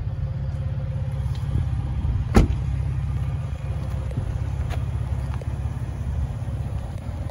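Ford Expedition's 3.5-litre high-output EcoBoost V6 idling, a steady low rumble, with a single sharp click about two and a half seconds in.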